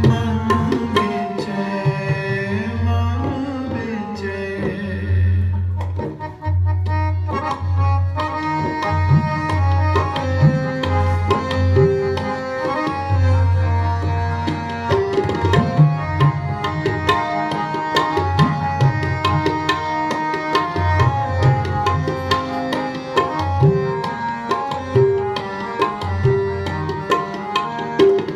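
Instrumental passage of Sikh kirtan: tabla playing a steady rhythm, the deep bass-drum strokes prominent, under held melody notes of a harmonium.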